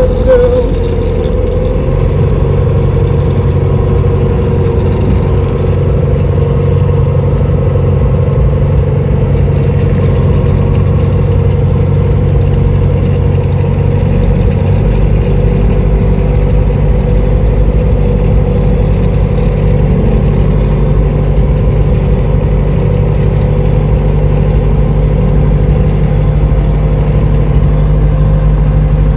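Tractor diesel engine running steadily, its note shifting about two seconds in and again about halfway through.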